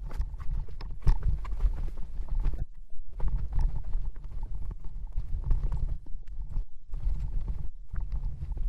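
Footsteps walking on a rocky trail: an uneven run of thuds and knocks over a low rumble that cuts out briefly a few times.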